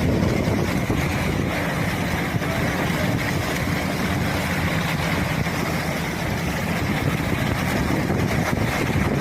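Boat motor running steadily, with a constant low engine hum under wind and water noise.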